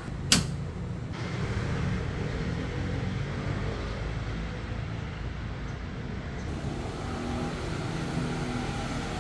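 A single sharp click about a third of a second in, as a circuit breaker is snapped onto the panel's mounting rail, over a steady low engine-like rumble.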